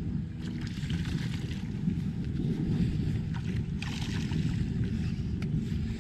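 Steady low rumbling noise of wind buffeting the microphone, with fainter hissing above it that comes and goes.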